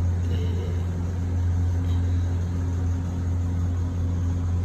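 A steady low electrical hum, an appliance or motor running without change.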